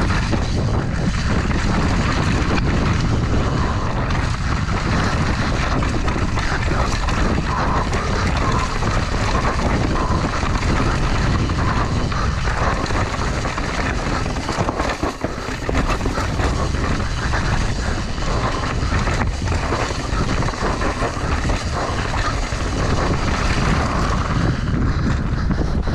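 Mountain bike riding fast down a rocky, leaf-covered dirt trail: a steady rush of wind on the action camera's microphone mixed with tyre noise over rock and dirt, dipping briefly about halfway through.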